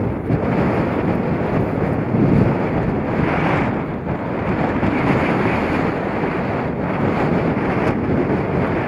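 Continuous rushing roar of a large EF4 tornado, like a waterfall, with strong wind buffeting the microphone.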